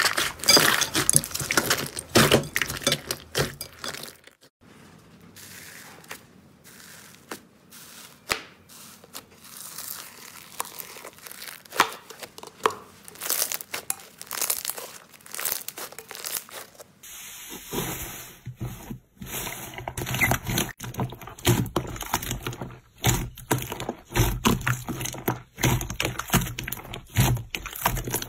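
Hands squeezing and kneading slime, a dense run of small pops and crackles as trapped air is pressed out. The pops are quieter through the middle stretch and grow louder and fuller again for the last third.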